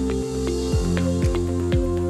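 Upbeat electronic background music: a steady kick drum about twice a second under held synth and bass notes, with light percussion ticks.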